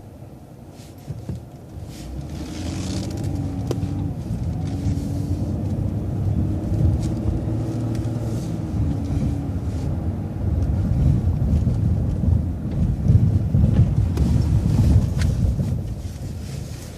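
Transit bus pulling away and accelerating through a right turn: a heavy engine and drivetrain rumble that builds after about two seconds, with a low whine that rises in pitch and later falls away.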